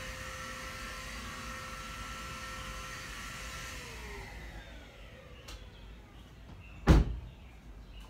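Portable vacuum cleaner running with a steady whine, then switched off about four seconds in, its pitch sliding down as the motor winds down. A single loud thump follows near the end.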